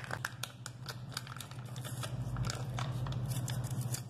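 Plastic Oreo biscuit wrapper crinkling and crackling as it is worked loose and pulled out of a ceramic mug around a frozen ice-cream bar: many quick, irregular crackles over a steady low hum.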